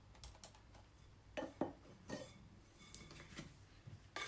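A few faint, scattered clicks and short scrapes of baking tools: a metal flour sifter being worked over the worktop, then a plastic dough scraper against a glass mixing bowl near the end.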